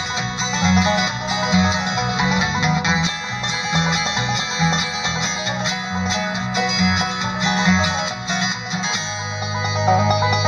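Bluegrass string band playing an instrumental passage with no singing: quick picked banjo and guitar notes over a bass line, with a longer held low bass note near the end.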